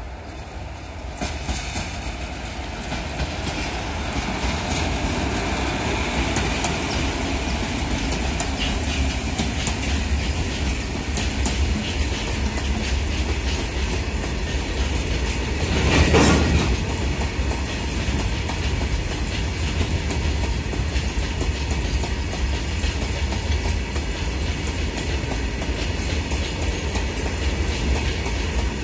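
Freight train hauled by twin WAG-7 electric locomotives passing close by: the rumble grows as the locomotives approach and go past, then the wagons' wheels keep up a steady rumble and clickety-clack over the rail joints. A brief louder rush rises over the noise about halfway through.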